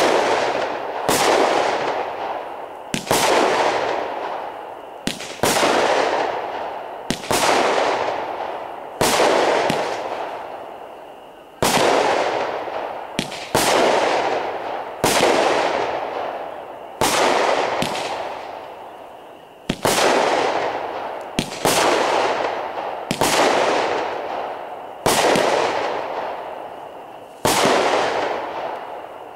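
Squirrel 'Star Thunder' aerial firework firing shot after shot, about one every one to two seconds. Each shot is a sharp bang followed by a long fading hiss as its gold sparks burn out.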